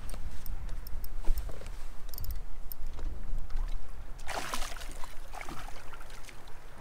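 Wind buffeting the microphone over water lapping against a boat hull, with a brief louder rush of noise about four seconds in.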